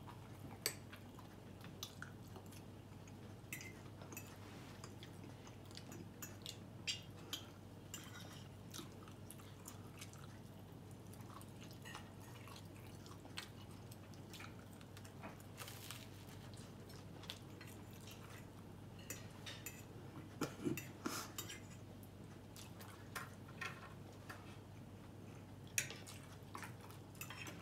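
Someone eating at the table: quiet chewing with scattered light clicks and scrapes of a fork on a plate, a few sharper ones about two-thirds of the way through, over a steady low hum.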